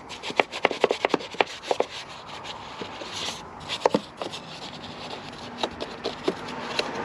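A small detailing brush scrubbing in a car engine bay: bristles rubbing and scratching, with many sharp, irregular clicks and taps as the brush knocks against the parts, thickest in the first two seconds.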